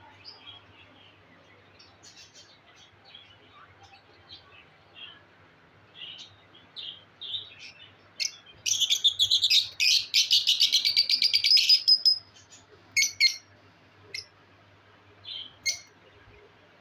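Budgerigars chirping: scattered short chirps, then a loud run of rapid chattering lasting about four seconds midway, then a few more chirps.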